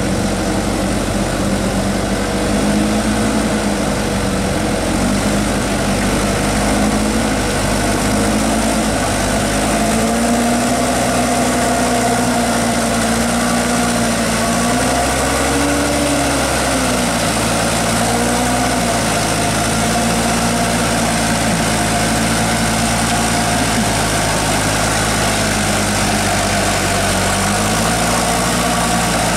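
Diesel engine of a light truck loaded with oil-palm fruit bunches, working slowly in low gear through deep mud. The engine note rises and falls as it is throttled up and eased off, highest about halfway through.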